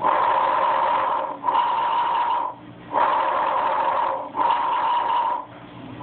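Recorded bronchovesicular breath sounds, as heard through a stethoscope: two breaths, each an in-breath and an out-breath of about equal length with a brief break between them, then a short pause before the next breath.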